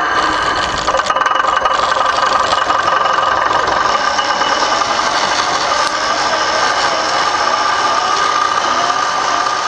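Scale model tractor driving along with a steady, engine-like running sound.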